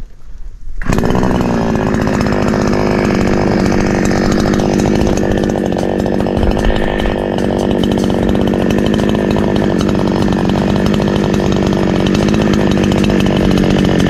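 INGCO chainsaw starting up about a second in, then running loud and steady.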